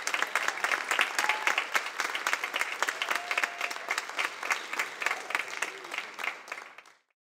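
Audience applauding, with a few short calls from the crowd over the clapping. The applause fades and stops near the end.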